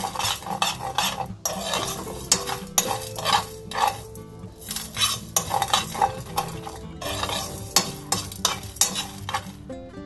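Steel spoon stirring and scraping mustard seeds and black peppercorns around a nonstick pan as they roast, in repeated irregular strokes with the seeds rattling and hissing against the metal.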